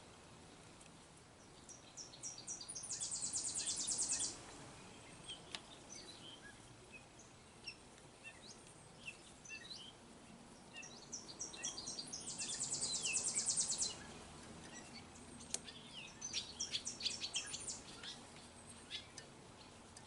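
A songbird singing, high-pitched rapid trilled phrases repeated three times, with scattered single chirps between them.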